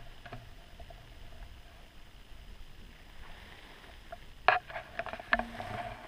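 A hiker's footsteps on a forest trail, with a few sharp knocks and clicks about four and a half to five and a half seconds in.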